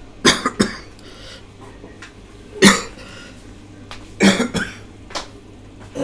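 A man coughing repeatedly in short, sharp bursts: a quick pair, a single harder cough, another quick pair, then a softer one.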